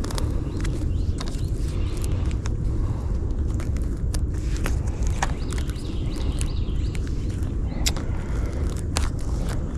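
Steady low rumble of wind buffeting the microphone, with scattered sharp clicks and ticks throughout.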